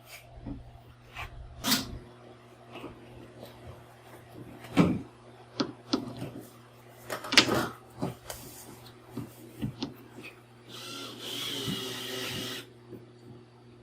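Scattered knocks and clicks of hand work on a van's back-door panel and its fittings, with a steady two-second hiss near the end.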